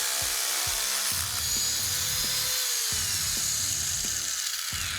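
Power tool cutting 20-gauge sheet steel: a steady, high-pitched cutting noise that stops near the end.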